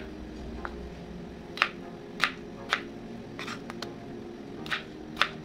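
A kitchen knife chopping through a cucumber onto a cutting board: about nine sharp, short chops at an irregular pace.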